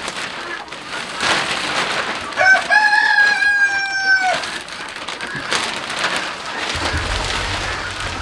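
A rooster crows once, a single long held call starting about two and a half seconds in, over a steady crackling rustle.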